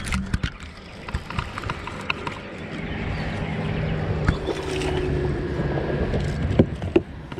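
Boat motor running steadily, swelling a few seconds in, with a few sharp knocks.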